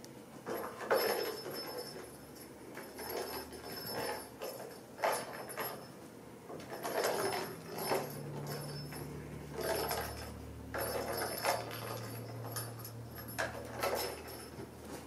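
Clear plastic hamster ball rolling and bumping over a rug as a kitten paws and pushes it: irregular knocks and rumbles, with a small toy inside rattling and jingling.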